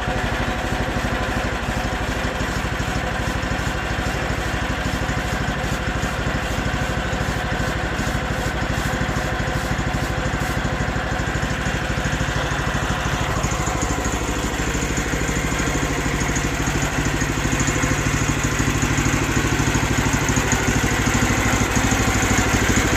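Small gas engine of a Hudson HFE30 portable band sawmill running steadily. About halfway through the sound changes, with more high hiss from then on, and it grows slightly louder toward the end.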